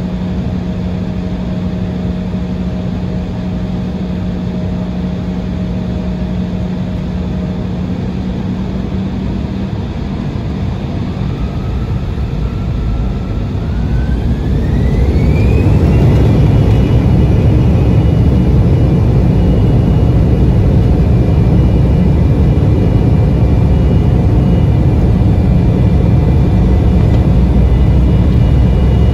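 Embraer E175's GE CF34-8E turbofan engines heard from inside the cabin, running at a steady idle, then spooling up to takeoff thrust about halfway through with a rising whine. After that comes a steady loud roar with a high whine as the takeoff roll begins.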